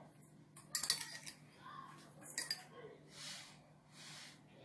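Metal spoon clinking against a stainless steel saucepan and bowl as spoonfuls of sugar are scooped and tipped in. There is a cluster of sharp clinks about a second in and another clink a little before the middle, then soft grainy scraping and pouring.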